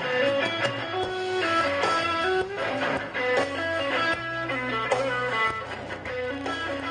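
Live blues-rock band playing an instrumental break: electric guitar picking a line of single notes, with a bent note about five seconds in, over bass guitar and drums.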